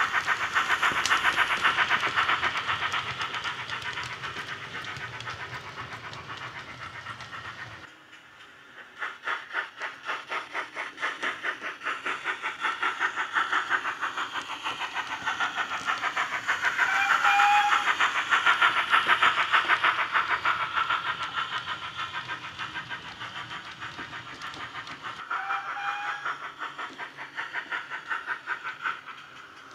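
Hornby Large Prairie tank locomotive model's ESU LokSound micro sound decoder playing steady rhythmic steam exhaust chuffs through a small speaker, swelling and fading as the model runs. Two short whistle toots sound, one past the middle and one near the end.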